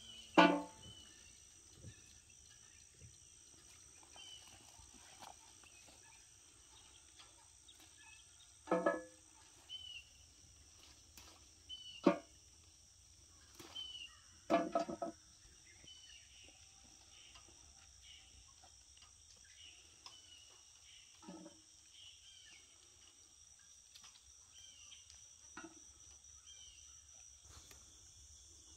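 Picked pea pods dropping into a galvanized metal pail: a handful of short ringing clanks at irregular intervals of a few seconds, the loudest just after the start and a few near the middle. Under them runs a steady high chorus of crickets and other insects.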